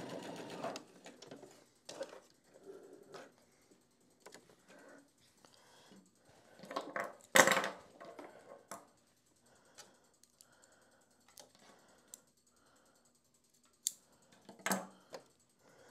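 Electric sewing machine stitching, stopping under a second in. Then fabric rustling and scattered light clicks as the sewn piece is taken off the machine and handled, with one loud sharp clack about halfway through.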